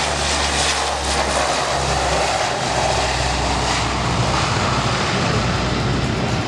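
The four Allison T56 turboprop engines of a C-130H Hercules running at maximum power for a short-field takeoff: a loud, steady sound of engines and propellers.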